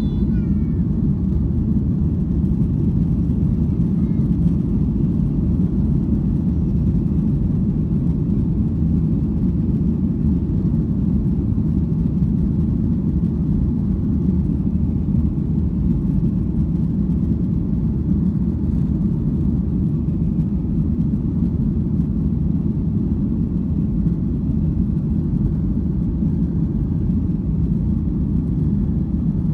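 Steady low rumble of a Boeing 737-800's CFM56-7 jet engines and airflow, heard inside the passenger cabin.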